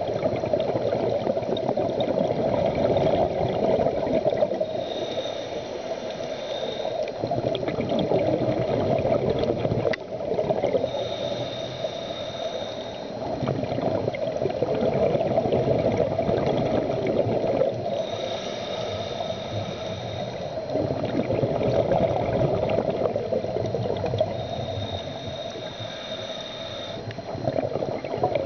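A scuba diver breathing through a regulator underwater. Long bubbling exhalations alternate with shorter, quieter inhalations, each inhalation carrying a thin high tone, about four breaths in all.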